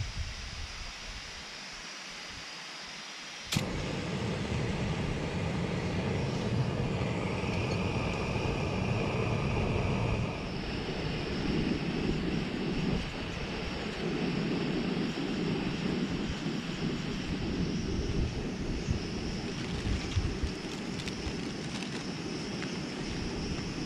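Portable gas camping stove: a sharp click about three and a half seconds in, then the burner running with a steady hiss. The sound shifts slightly about ten seconds in.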